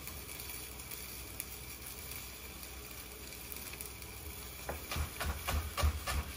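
Chef's knife chopping fresh parsley and coriander on a wooden cutting board: a quick run of knocks, about five a second, that starts near the end. Before that only a low steady hum.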